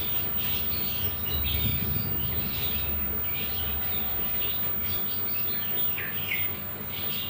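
Small birds chirping repeatedly in the background, over a low steady hum and a thin, steady high-pitched whine, typical of a powered CRT television's flyback transformer.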